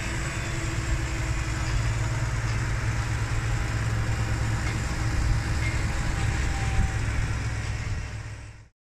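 Tractor engine running steadily with a dense low rumble while pushing maize silage with a front-mounted pusher blade. The sound fades and cuts off to silence shortly before the end.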